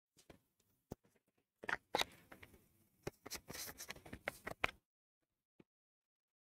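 Handling noise from a clip-on lapel microphone as it is passed over and fixed to a shirt. A few sharp clicks come first, then about three seconds of rubbing, rustling and small knocks against the mic.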